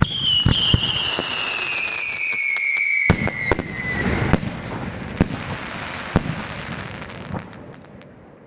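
Aerial fireworks going off: a sudden salvo of bursting shells with sharp bangs and dense crackling, and a high whistle that slowly falls in pitch over about four seconds. The bangs thin out and the crackle dies away near the end.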